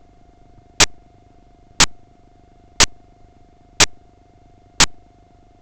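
Sharp clicks evenly spaced once a second, each dying away quickly, over a faint steady tone.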